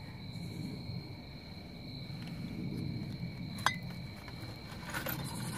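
Glass water bottles clinking as they are handled in a cardboard box, with one sharp clink that rings briefly about two thirds of the way in and a few lighter knocks near the end. Crickets chirr steadily behind.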